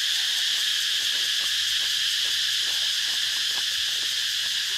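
Steady high-pitched chorus of forest insects, with faint scattered crackles of footsteps through dry leaves and brush.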